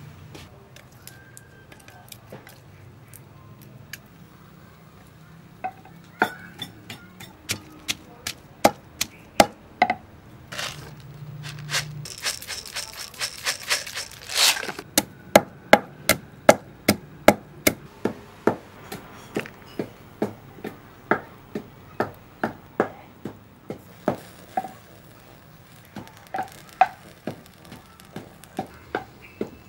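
Pestle pounding garlic and peppercorns in a mortar: sharp, even knocks at two to three strokes a second that start about six seconds in and keep going. Around the middle comes a brief rattling hiss as black peppercorns are poured into the mortar.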